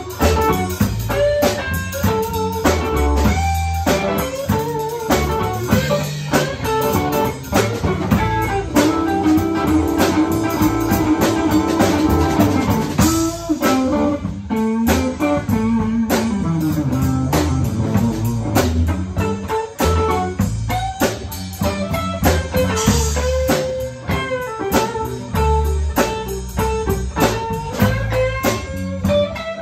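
Live blues trio playing an instrumental passage: a hollow-body electric guitar plays lead lines over electric bass and a drum kit. About a third of the way in a single guitar note is held for several seconds, then a falling run follows.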